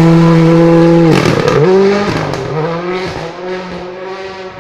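Rally car engine held at high revs, then about a second in the revs drop and climb again through quick gearshifts as the car pulls away and fades into the distance.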